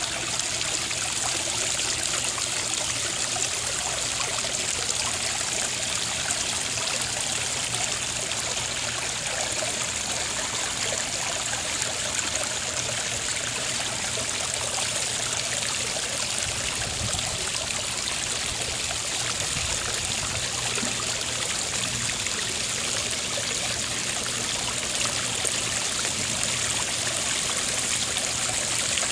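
Garden pond waterfall running, water trickling and splashing into the pond in a steady, even flow.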